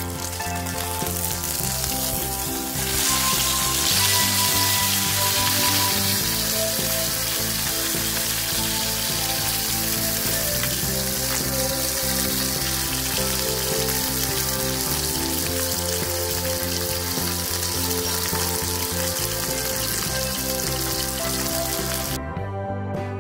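Atka mackerel fillet frying in oil in a nonstick pan, a steady sizzle that grows louder about three seconds in and cuts off suddenly about a second before the end. Background music plays underneath.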